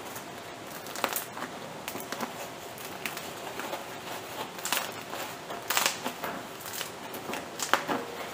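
Crisp crust of a round wheat sourdough loaf crackling and crunching as hands squeeze it, an irregular run of small crackles with a few louder crunches spread through.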